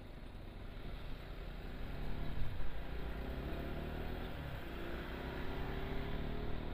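Motor vehicle engine accelerating over a steady road rumble. It grows louder about two seconds in, dips briefly past the middle, then climbs steadily in pitch.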